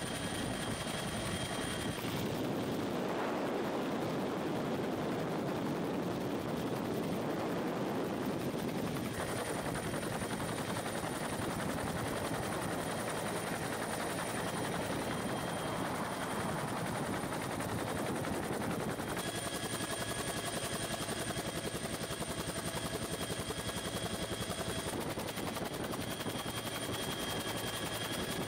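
Military helicopter heard from inside the cabin: steady engine whine over the dense noise of the rotor, with the blades' rapid, even beat. The sound shifts abruptly a few times, at cuts between shots.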